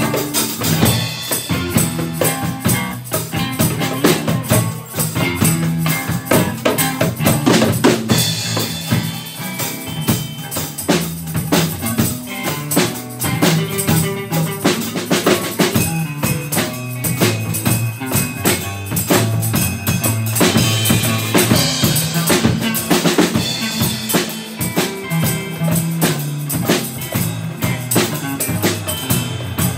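Live band playing a song: electric guitar, electric bass and a drum kit keeping a steady beat, with a djembe played by hand.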